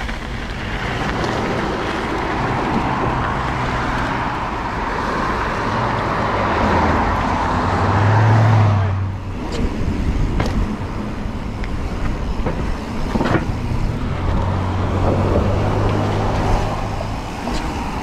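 Mountain bike's knobby Maxxis tyres rolling over loose gravel with a steady crunching hiss, heard through wind noise on the action camera. About halfway through, the gravel noise drops away to a quieter rolling sound on pavement, broken by a few sharp knocks.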